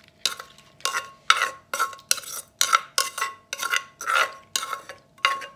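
A spoon scraping papaya salad out of a terracotta mortar, in a quick run of short scrapes, about two or three a second, some with a faint ring.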